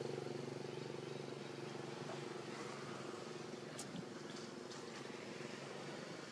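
A steady engine hum that fades over the first couple of seconds and then stays faint, with a few light clicks about four seconds in.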